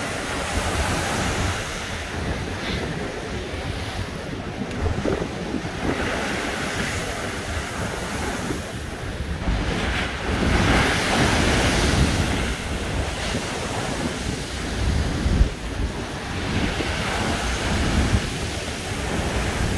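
Storm waves crashing against the promenade's sea wall and throwing spray up over it, with strong wind buffeting the microphone. The surf swells loudest about ten seconds in, as a big wave bursts into a tall plume.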